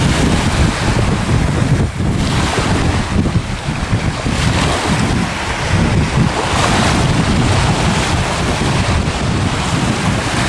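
Wind buffeting the microphone: a loud, uneven rush that rises and falls with the gusts.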